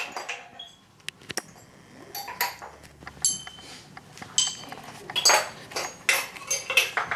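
Steel surgical forceps (hemostats) clicking and clinking as they are worked: a series of short metallic clicks, some ringing briefly, more of them and louder in the second half.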